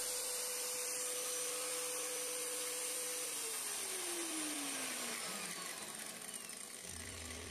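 Angle grinder with a homemade cardboard-and-sandpaper disc running free with a steady whine, then switched off about three seconds in and winding down, its whine falling in pitch.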